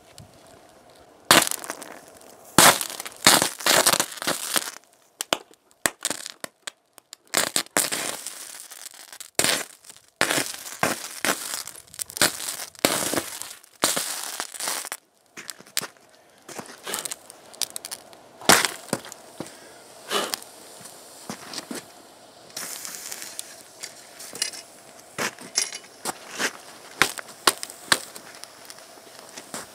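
High-current electrical arcing from a copper rod fed by four 12 V lead-acid batteries in series (48 V), short-circuiting through a laptop. The arc gives irregular bursts of loud crackling and popping that start about a second in, come thickly at first and then as sparser, shorter pops.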